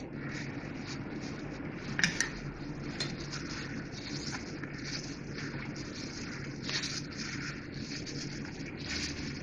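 Hand in a plastic glove mixing fish pieces with flour and spices in a stainless steel bowl: glove rustling and pieces rubbing against the bowl, with a few louder rustles about two, three, seven and nine seconds in.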